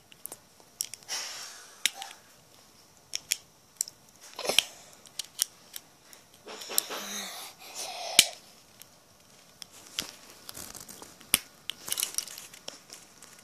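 Handling noise: rustling and a string of irregular sharp clicks as the recording device is picked up, covered and moved about. The loudest click comes about eight seconds in.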